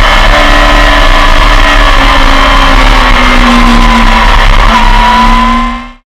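Racing motorcycle engine running loud at high revs on the track, heard from an onboard camera, with a brief dip and climb in pitch about three-quarters through. It fades out just before the end.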